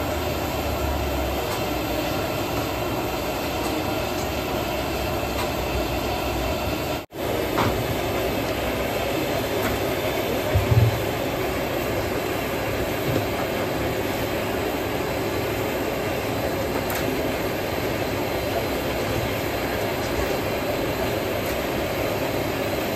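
Hot oil in a large wok sizzling and bubbling steadily as pieces of battered food deep-fry, with a short thump about eleven seconds in.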